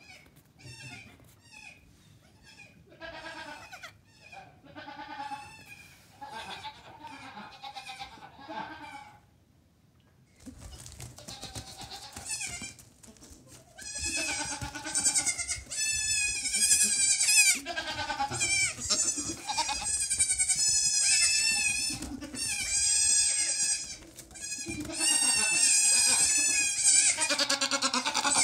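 Nigerian Dwarf goat kids bleating. A few scattered, fainter calls come first, then from about ten seconds in many loud, quavering, high-pitched bleats follow close together.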